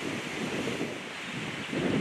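Steady rush of a flooded creek below, with wind gusting against the microphone and a stronger gust near the end.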